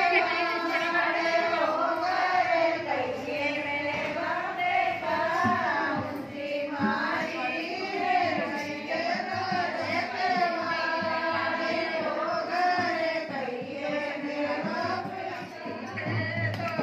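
A group of women singing a folk song together, one wavering melody carried without a break.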